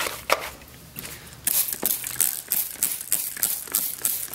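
Margin trowel stirring and scraping a damp concrete patching mix around a small metal can: a run of gritty scraping strokes that come thicker and faster from about a second and a half in.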